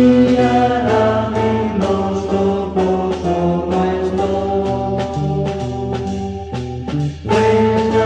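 Instrumental passage of a 1960s Spanish pop-rock band recording: a held melodic lead line over a moving bass line and steady drums, with a brief drop in level about seven seconds in.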